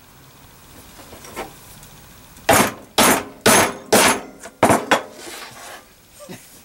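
A hammer driving a spike into a shield's boss as a press fit: a light tap, then five hard, ringing blows in quick succession, about two a second.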